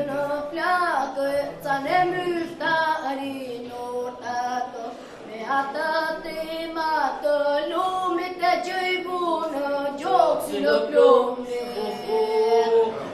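A group of children and teenagers singing together, several voices holding and bending notes line by line.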